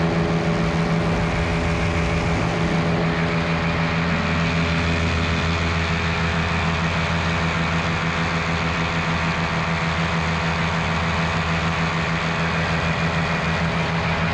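Miniplane paramotor's Top 80 single-cylinder two-stroke engine and propeller running steadily at a constant pitch.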